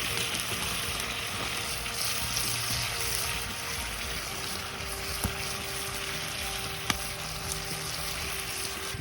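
Food frying in a pan, a steady sizzling hiss, with two sharp clicks about five and seven seconds in.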